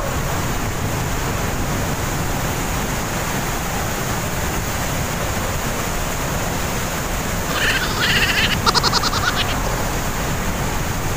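Steady rushing of a glacier-fed waterfall plunging through the rock chasm inside the mountain. A brief higher sound made of rapid pulses rises over it about eight seconds in.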